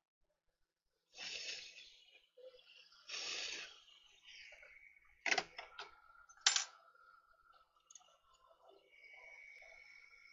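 Two short hissing bursts, then several sharp clicks of small tools on the bench, the two loudest coming about a second apart. A faint steady whine of a few tones follows.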